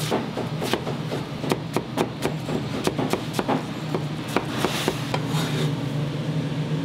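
Kitchen knife chopping on a wooden cutting board: irregular knocks, a few a second, thinning out after about five seconds, over a steady low hum.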